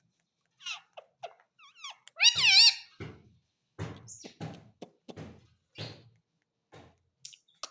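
Indian ringneck parakeet calling: a few short gliding chirps, then a loud wavering call about two seconds in, followed by a string of short raspy chatter notes.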